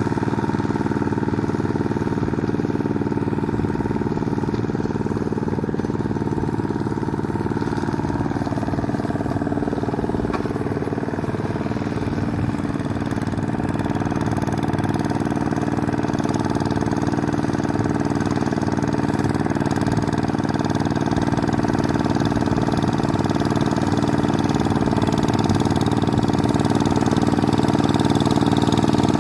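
An old Kubota engine on a paddy-field tractor running steadily. Its pitch shifts a little about a third of the way in, and it grows slowly louder toward the end.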